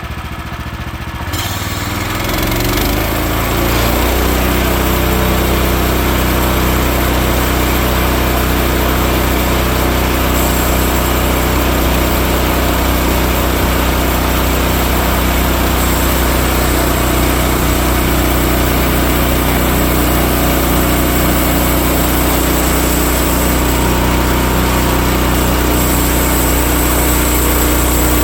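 A Woodland Mills HM130 MAX bandsaw mill's gas engine throttles up from idle about two to four seconds in, then runs steadily at speed under load as the band blade cuts through the log.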